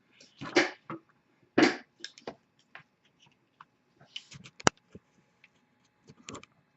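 Handling and opening a shrink-wrapped trading card box: crinkly rustles and small clicks of plastic wrap and cardboard, loudest about half a second and nearly two seconds in, with one sharp click near the middle.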